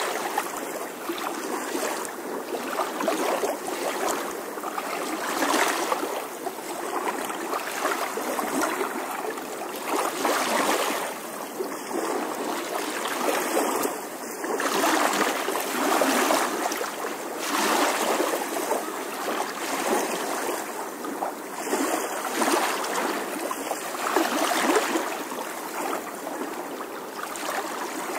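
Rushing water, like a stream or surf, swelling and easing every couple of seconds.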